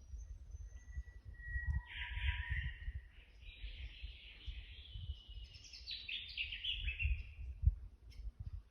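Wild birds calling. A thin whistled note comes about a second in, then a short scratchy call, then a longer run of rapid notes stepping down in pitch, all over an uneven low rumble.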